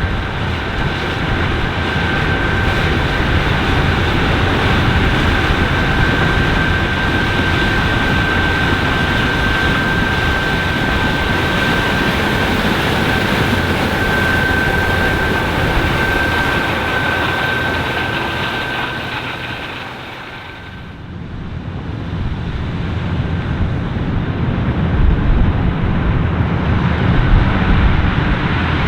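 Challenger 560C combine harvesting corn: its 9.8-litre seven-cylinder AGCO Power diesel running under load with the threshing machinery, a steady loud drone with a steady high whine over it. About twenty seconds in the sound dips briefly, then returns with more low rumble.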